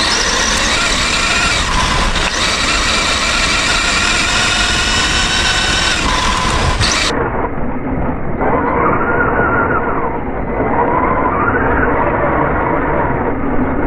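RC car's electric motor whining as the car drives, its pitch rising and falling with the throttle over a rough rumble. About halfway the sound turns duller, with slow up-and-down sweeps in the whine.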